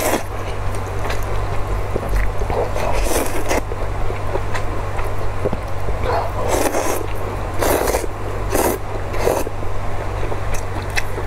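Noisy slurping of glass noodles sucked into the mouth, with chewing between slurps. There are several short slurps, most of them bunched in the second half, over a low steady hum.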